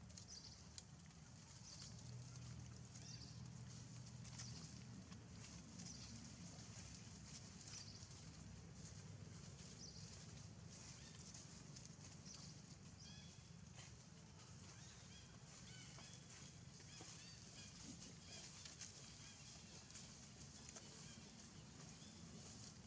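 Near silence: faint outdoor ambience with a steady low hum and a soft high hiss, and a few faint high chirps in the second half.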